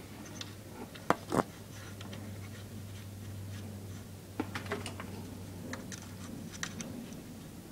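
Scattered light metallic clicks and scrapes from small steel parts being worked free inside an open small-engine crankcase, as the governor rod's safety pin and washer are pulled off. A steady low hum runs underneath.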